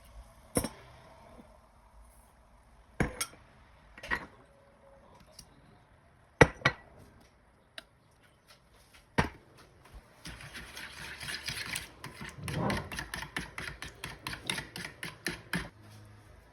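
Kitchen work with utensils and dishes: several separate sharp knocks and clacks, then about five seconds of quick repeated strokes, roughly six a second, that stop abruptly near the end.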